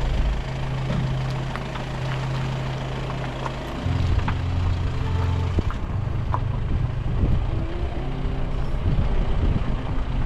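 Car engine running under load while driving a rough unpaved track, with short clicks of stones or gravel under the tyres; the engine note shifts about four seconds in.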